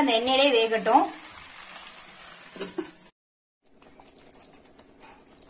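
A voice speaks for about a second, then pepper chicken frying in a pan with a soft sizzle. After a brief break there is only a faint steady hum and quiet stirring in a pan of curry.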